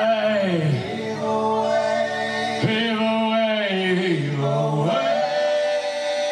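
Live Celtic rock band music, with men's voices singing long held notes that slide down and up between pitches.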